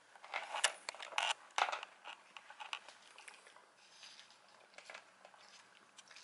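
A cat and a dachshund crunching hard cat dental treats from a plastic bowl: a loud flurry of crunches in the first two seconds, then sparser, quieter crunching and clicks.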